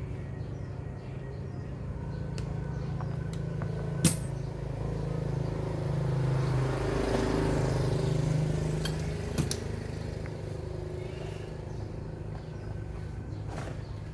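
Two sharp metallic clinks about five seconds apart, over a steady low hum that swells and fades in the middle.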